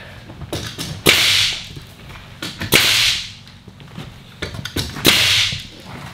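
Pneumatic nail gun firing three times, about a second and a half to two seconds apart, driving nails through OSB sheathing into the wall studs. Each shot is a sharp crack followed by a short hiss of exhausted air.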